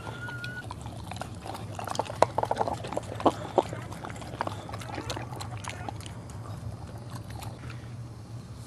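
Boxer mother licking and mouthing a newborn puppy out of its amniotic sac: wet slurping, smacking and clicking. The smacks come thickest and loudest about two to three and a half seconds in, over a steady low hum.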